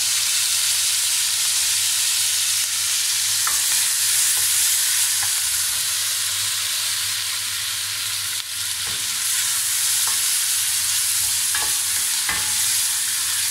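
Freshly added chopped tomatoes and green chillies sizzling steadily in hot oil in a steel pot, with a wooden spoon stirring and knocking against the pot a few times.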